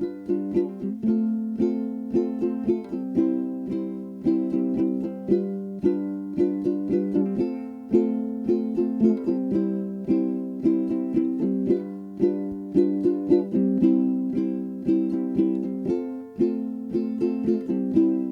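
Background music: a plucked string instrument, ukulele-like, playing a light tune with a steady rhythm.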